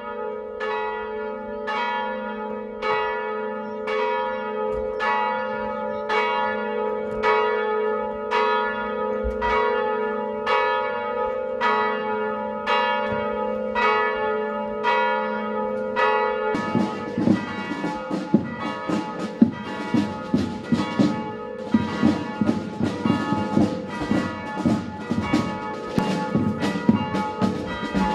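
Church bells ringing: a single bell strikes evenly, a little faster than one stroke a second, over its steady hum. About two-thirds in, a denser, irregular clangour of overlapping strikes takes over.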